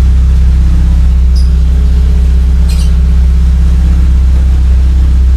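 Car engine idling steadily with engine flush in the oil, its exhaust very loud from a leak in the lower part of the muffler.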